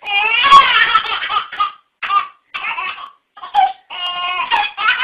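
Baby laughing hard, a long run of laughter at first and then short repeated bursts of giggles.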